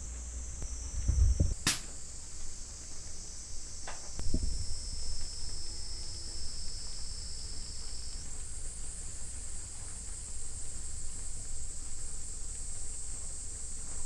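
Steady high-pitched chorus of summer insects, its pitch shifting a little about eight seconds in. A sharp click comes about two seconds in, with a few low knocks early on the table.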